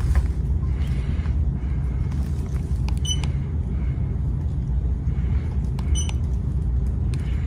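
52-inch TroposAir Cresswind ceiling fan running in downdraft: a steady low rumble of its air moving across the microphone, with a faint short click about every three seconds.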